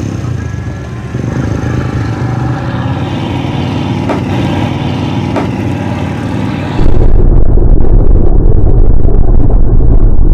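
Mud-bogging pickup truck's engine running hard as it churns through a water-filled mud pit. The sound is loud and heavy in the low end and comes in suddenly about seven seconds in, after a quieter engine sound under the opening logo.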